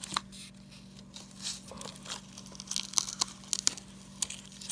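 Paper coin-roll wrapper crinkling and half-dollar coins clicking against each other as a roll is searched by hand, with a quick run of sharp clicks about three seconds in.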